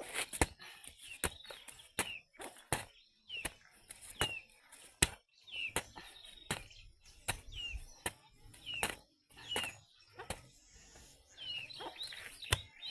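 A bird calling over and over with a short falling chirp, about once a second, among a string of sharp, irregular knocks.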